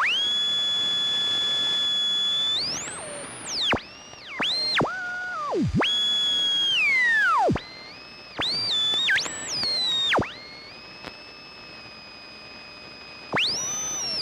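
Radio being tuned across the dial: whistling tones glide up and down in pitch, hold briefly and drop away suddenly, over a faint hiss. About ten seconds in it falls to a quieter stretch with a faint steady whistle, then a loud whistle sweeps up again near the end.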